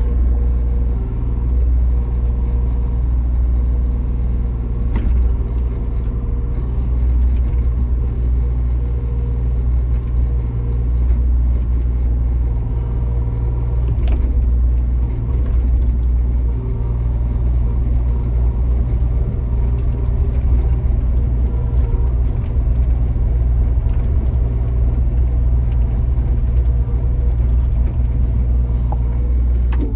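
Backhoe loader's diesel engine running steadily, a constant low drone with a few faint knocks.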